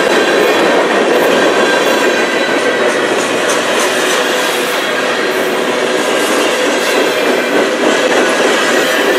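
Freight cars of a manifest train, covered hoppers and tank cars, rolling past close by: a steady loud rumble of steel wheels on rail with a clickety-clack over the joints and a faint high wheel squeal.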